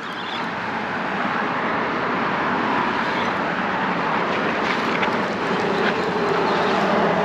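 Road traffic: vehicle tyre and engine noise that builds over the first second or two, then holds steady.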